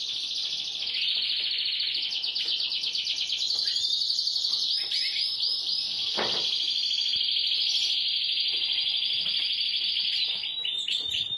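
Domestic canary singing a long, continuous song of fast high trills, breaking into slower runs of separate repeated notes about five seconds in and again near the end.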